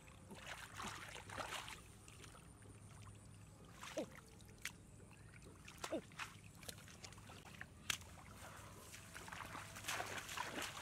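Hands sloshing and splashing through shallow muddy floodwater while feeling for frogs, with two brief falling squeaks about four and six seconds in.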